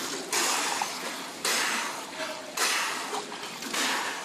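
A freediver's hard recovery breathing just after surfacing from a 251 m breath-hold swim: sharp, noisy breaths about one a second, each starting suddenly and fading away.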